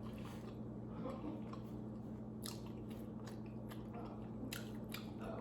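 Close-miked chewing and biting of pizza, with scattered short wet mouth clicks and crunches, over a steady low hum.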